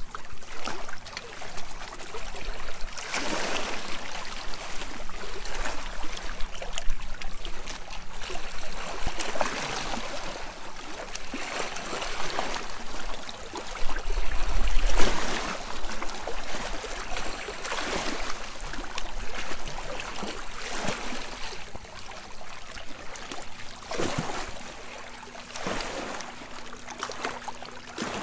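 Shallow sea water lapping and splashing against shoreline rocks, in surges every couple of seconds, with a low rumble on the microphone about halfway through.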